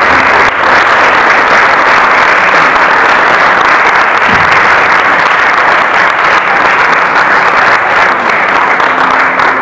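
Audience applauding steadily: dense, continuous clapping from a full house.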